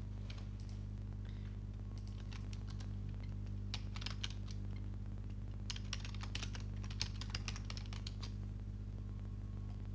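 Typing on a computer keyboard in a few short runs of keystrokes, the longest from about six to eight seconds in, over a steady low electrical hum.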